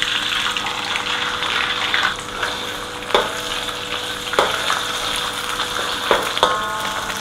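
An egg frying in hot oil in a wok, sizzling steadily, with a metal spatula striking the wok several times, each strike ringing briefly.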